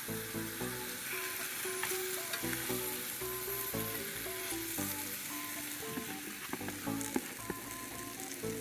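Miso-marinated pork on a bed of sliced onions sizzling steadily as it fries in a pan. A light background melody plays over it.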